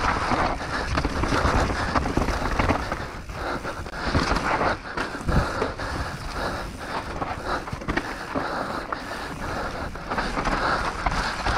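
Mountain bike descending a rough trail at speed: tyres running over dirt and rock, with a constant clatter of chain and frame over the bumps.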